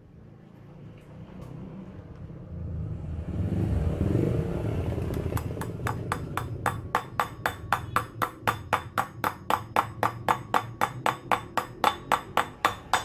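Hammer blows on the hub of a motorcycle cast wheel, about three a second, starting about five seconds in, seating the seal into the hub. A low rumble swells before the blows begin.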